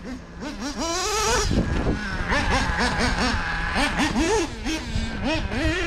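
Nitro engine of a 1/8-scale Mugen MBX7R off-road buggy, an Ultimate M5 3.5 cc two-stroke glow engine, revving up and down under throttle in quick repeated rising-and-falling sweeps, with a steadier stretch about two seconds in.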